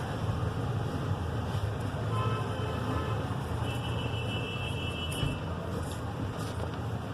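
Steady road traffic rumble in the background, with a faint high steady tone held for about two seconds a little past the middle, like a distant vehicle horn.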